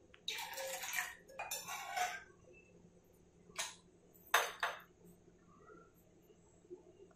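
Ceramic mug being handled on a countertop: a few short scrapes and knocks, the last a quick double knock about four and a half seconds in.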